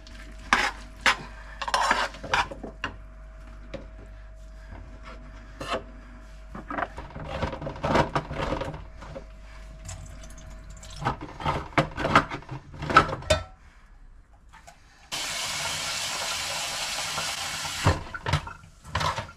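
Kitchen tap running in a steady gush for about three seconds near the end, starting and stopping sharply. Before it come scattered clinks and knocks of dishes and utensils being handled.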